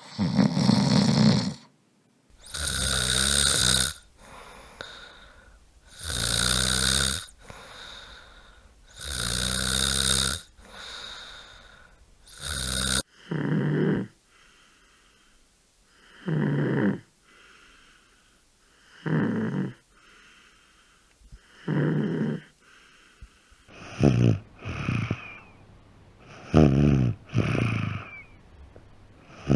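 Loud snoring, one rattling snore every three to four seconds. About halfway through the sound changes abruptly to shorter snores about every two and a half seconds, and near the end they come in pairs.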